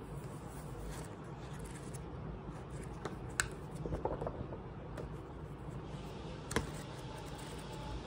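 A paperback manga volume handled by hand: two sharp taps or clicks, one a little past a third of the way in and one near the end, and a brief rustle of paper between them, over a steady low background hum.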